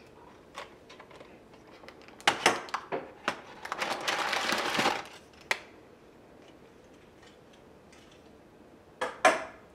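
Metal springform pan being unclipped and its ring worked off a baked cheesecake: a run of sharp metallic clicks and clatters, then about a second of parchment paper crackling. Two more sharp clicks come near the end.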